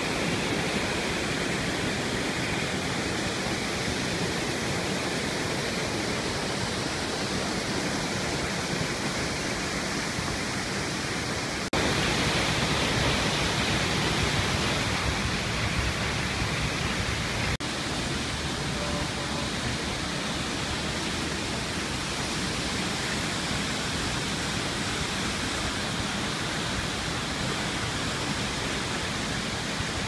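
Steady rush of falling water from a waterfall. It jumps abruptly louder at about twelve seconds and drops back a little at about eighteen seconds.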